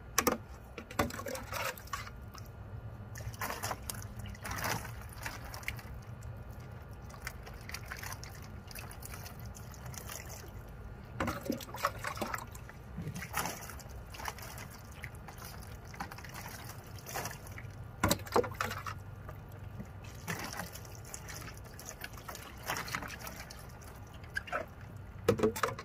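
Rinse water poured from a plastic pitcher over a small wet dog, trickling and dripping into a plastic wading pool, with scattered short splashes.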